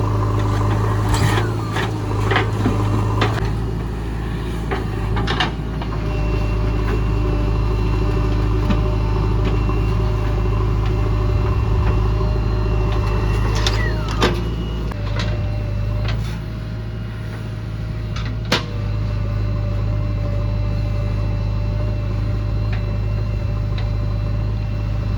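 JCB 3DX backhoe loader's diesel engine running steadily under work, with a few sharp knocks scattered through, the loudest about 14 and 18 seconds in.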